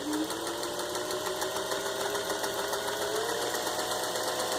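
Vintage Singer 500A Rocketeer sewing machine running steadily as it stitches a built-in cam pattern: an electric motor hum over rapid, even needle ticking. The motor picks up speed slightly about three seconds in.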